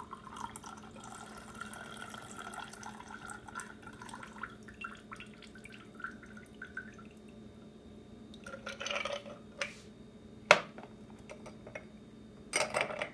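Stirred cocktail poured from a mixing glass through a julep strainer into a rocks glass: a trickling stream for about four seconds that thins out into drips. Later come a few sharp clinks and knocks of glassware and bar tools, the sharpest about ten and a half seconds in.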